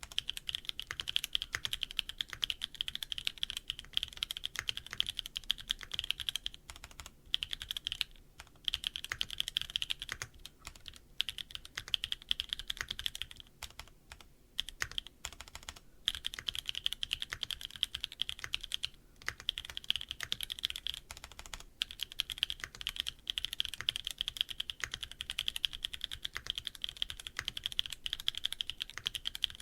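Neo80 mechanical keyboard with HG Black switches on a carbon fiber plate, gasket-mounted on dumbbell gaskets with no foam, typed on in fast, steady runs of keystrokes. There are short pauses now and then, and a longer one about halfway.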